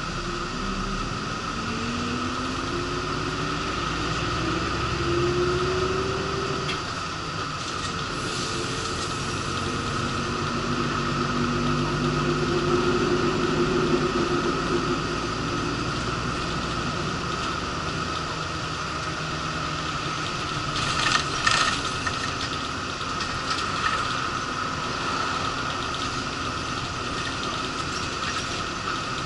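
Shuttle bus engine running under way, heard from inside the cabin, its pitch rising and falling as the bus accelerates and changes gear. A steady whine runs through it, with short bursts of rattling about eight seconds in and again past the twenty-second mark.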